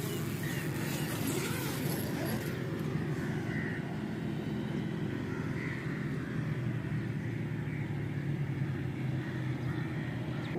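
Steady low rumble of distant road traffic, an even engine-like hum.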